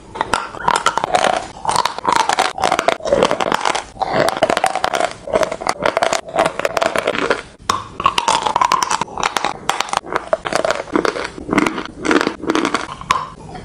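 Close-miked biting and chewing of a block of dry chalk: a dense run of crisp, gritty crunches with a few brief pauses.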